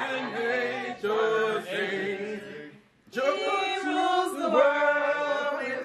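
A group of voices singing a Christmas carol together, unaccompanied. The singing breaks off briefly about three seconds in, then resumes.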